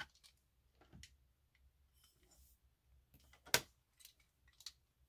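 A few faint clicks and handling knocks as a comb and a Revlon 2-inch clamp curling iron are handled, with a brief rustle of hair. The loudest is one sharp click a little past three and a half seconds, as the iron's spring clamp closes on a section of hair.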